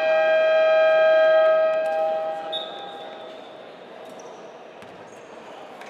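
Basketball arena's electronic game buzzer sounding one long, steady, loud blast of about two and a half seconds, then dying away.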